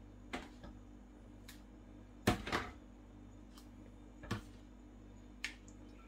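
Metal spoon knocking against a glass mixing bowl as spoonfuls of thick yogurt are scraped into it: a few separate sharp clicks, the loudest a short cluster of knocks near the middle.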